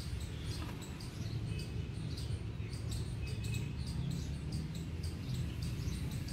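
Outdoor background sound: short, high chirps and clicks repeating every fraction of a second over a steady low rumble.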